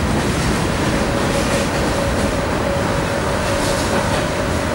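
Freight train of tank cars and covered hoppers rolling past, a steady rumble of wheels on rail, with a thin steady whine that comes up about a second in.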